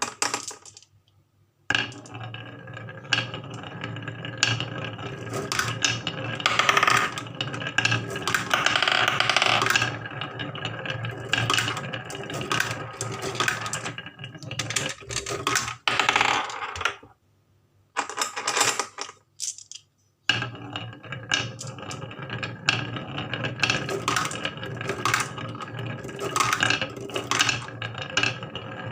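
Marbles rolling and clattering down a wooden marble run, with many quick clicks and rattles over a steady low hum. The sound drops out briefly about a second in and twice more later.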